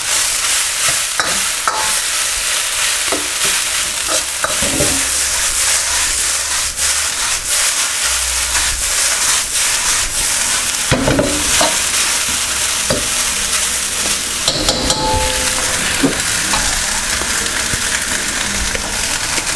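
Boiled rice sizzling in a hot, oiled wok while a metal ladle scrapes and clacks against the wok as it stir-fries the rice. Around halfway through, the wok is tossed.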